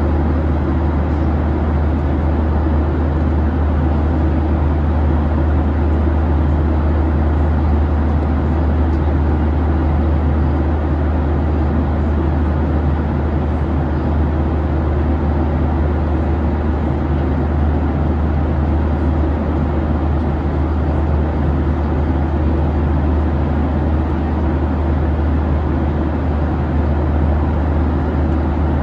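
Steady cabin noise inside a Boeing 737-800 airliner: a deep, even drone with a rushing hiss above it, unchanging throughout.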